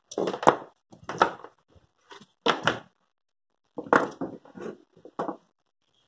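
Power tools being handled and moved on a wooden table: a series of about six separate clunks and rattles, each lasting a fraction of a second, with short silences between them.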